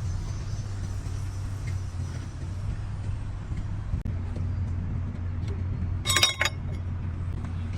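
A steady low machinery hum, with a brief burst of metal parts clinking about six seconds in.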